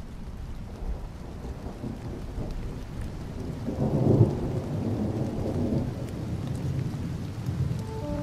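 Rain falling with a low rolling rumble of thunder that swells to its loudest about halfway through.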